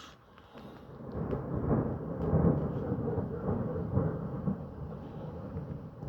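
A long rolling rumble of thunder that builds about a second in, swells in several surges over the next few seconds, and slowly fades away.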